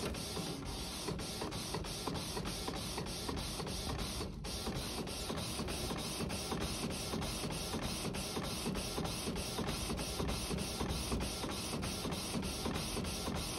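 Canon PIXMA iP8750 inkjet photo printer printing a sheet: a steady mechanical whir of the print head shuttling back and forth, broken by short regular pauses about three times a second as the paper feeds out.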